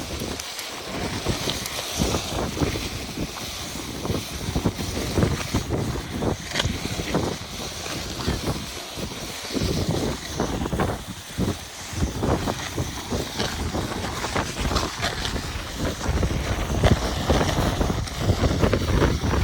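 Wind buffeting the microphone outdoors: an uneven low rumble that rises and falls in gusts, with scattered brief rustles and crunches.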